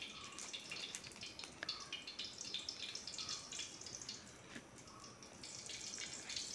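Ghee crackling faintly as it melts in a hot kadai, a scatter of small ticks and pops.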